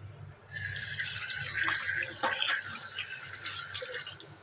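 Egg-coated bread rolls shallow-frying in hot oil in a pan: the oil sizzling with scattered small pops. The sizzle sets in about half a second in and dies down near the end.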